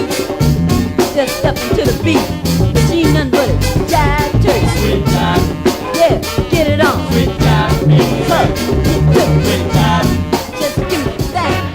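Funk music with a driving drum beat, busy hi-hat, bass line and singing.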